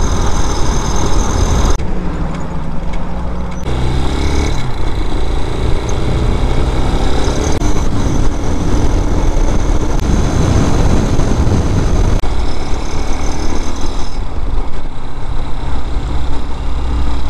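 Single-cylinder 229cc air-cooled engine of a Vitacci Raven 250 dual-sport motorcycle running under way, over a steady rush of wind and road noise. The engine pitch shifts several times, climbing as it accelerates and stepping at gear changes.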